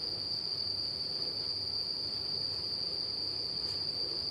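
A cricket trilling: one steady high-pitched tone held without a break, with a faint low hum beneath it.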